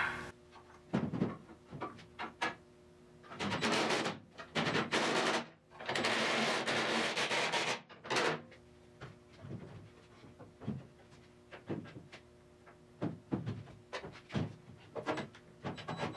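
Handling and fastening noises as a plywood rotisserie jig is fitted against a car's steel body shell: scattered knocks and clunks, with a few rushing, scraping bursts of one to two seconds in the middle.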